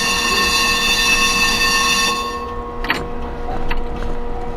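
Tram's warning horn sounding one steady blast that cuts off about two seconds in, over the tram's steady hum. A couple of sharp clacks follow as the wheels run over track joints.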